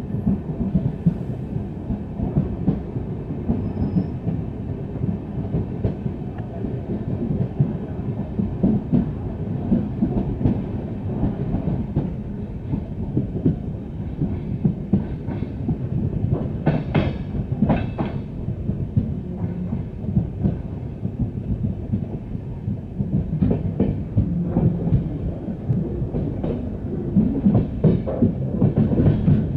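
Passenger express coaches rolling through on the rail, with a steady rumble and wheels clattering over the rail joints, and a few sharper clanks about 17 seconds in.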